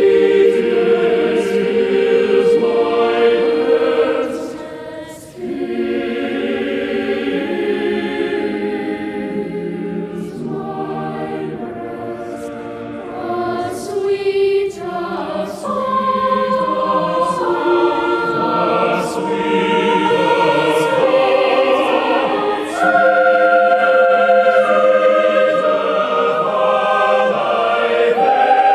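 Choir singing a slow piece in several parts, notes held long and changing together, with a brief dip in loudness about five seconds in.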